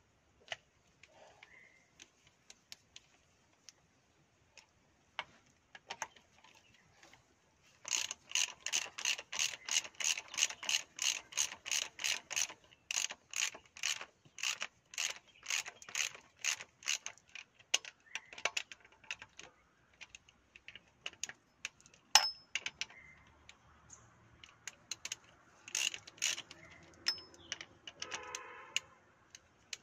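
Socket ratchet wrench clicking as it turns the bolts of a JCB 3DX transmission charge pump. It goes in a fast, even run of about four clicks a second from about eight seconds in, then in slower, scattered clicks with one sharp loud click midway through the second half.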